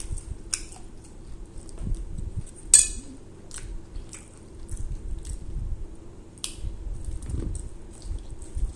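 Close-up eating sounds: chewing with wet mouth clicks and lip smacks, the sharpest click about three seconds in, then biting into a corn on the cob near the end.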